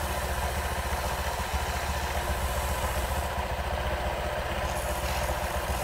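Honda Vario eSP scooter's single-cylinder engine idling steadily.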